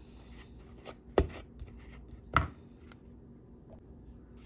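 Bare hand mixing and mashing a chermoula marinade in a plastic bowl: soft squishing and scraping, broken by two sharp knocks about a second apart.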